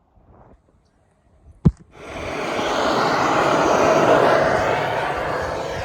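A sharp click, then a vehicle passing by: a broad rushing noise that swells over a couple of seconds, peaks, and slowly fades.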